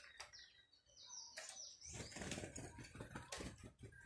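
Faint, short falling chirps from a cardeal (a Brazilian Paroaria cardinal), a few within the first two seconds, followed by rustling noise over the second half.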